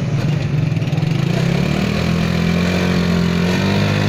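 Qingqi motorcycle rickshaw's engine running under load as it pulls through deep mud, its note shifting and then settling to a steadier pitch about halfway through.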